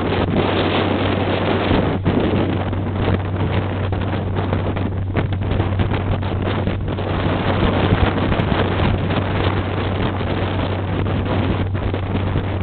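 Motorboat engine running steadily with a constant low hum while under way, mixed with wind buffeting the microphone and water rushing and splashing past the bow.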